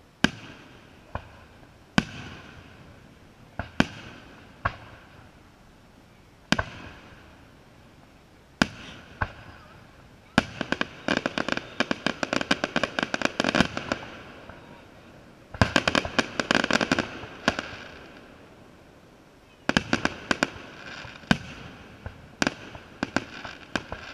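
Aerial firework shells bursting with sharp bangs a second or two apart, then dense rapid crackling about ten seconds in that lasts a few seconds, comes again a little later, and gives way to a quick run of bangs near the end.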